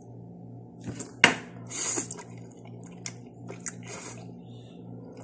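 A person slurping and eating instant noodles close to the microphone: a sharp click about a second in, then a longer slurp around two seconds, followed by short wet mouth noises.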